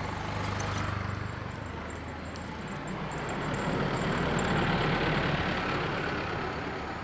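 A motor vehicle's engine running close by. Its sound swells to a peak about four to five seconds in and then fades, as a vehicle driving past does.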